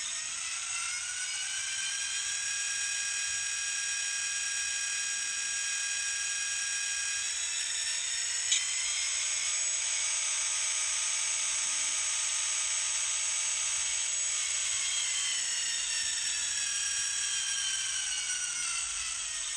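XL Systems sound decoder in an N scale Atlas GP38-2 playing its GP38-2 diesel prime mover sound through a tiny speaker while the locomotive runs in reverse. The engine note revs up at the start, drops back after a single sharp click about halfway, and revs up again near the end.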